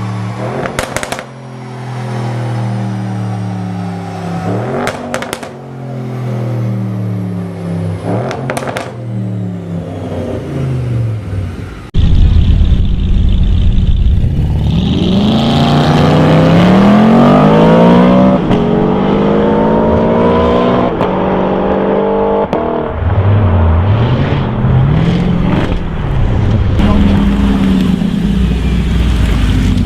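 Audi RS6 C7 Performance's twin-turbo V8 through an aftermarket sports exhaust, revved up and down with a few sharp crackles as the revs drop. About twelve seconds in it turns suddenly much louder, with the pitch climbing hard, dipping and climbing again under acceleration.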